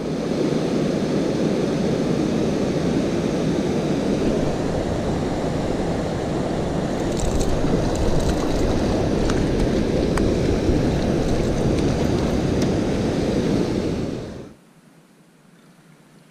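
Steady loud rush of river water and wind on the microphone, with a few faint clicks about halfway through. It cuts off suddenly near the end, leaving quiet.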